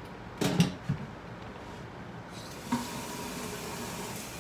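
A few sharp clattering knocks in the first second, then from about halfway in a steady hiss of steam from lidded pots boiling on the stove.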